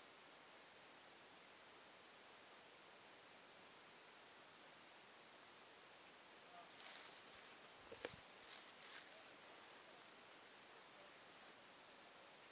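A steady, high-pitched insect trill, typical of crickets, running evenly throughout. A single sharp click comes about eight seconds in, with a little faint rustling around it.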